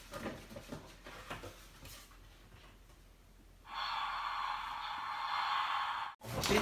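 Faint rustling and light ticks of a paper gift bag being handled. About halfway through, a loud, steady hiss starts abruptly, holds for about two and a half seconds, and cuts off suddenly near the end.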